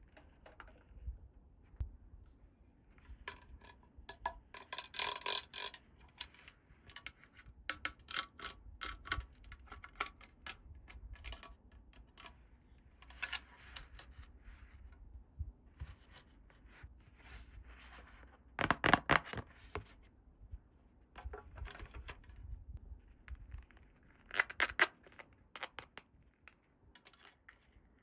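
Small plastic toy pieces clicking and rattling in short bursts as they are handled, the loudest cluster about two-thirds of the way through.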